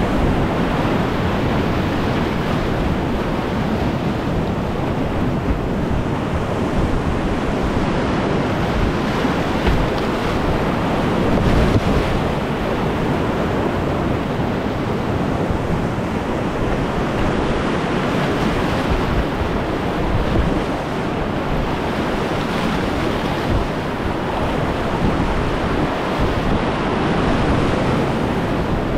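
Whitewater rapids rushing steadily, with wind rumbling on the microphone.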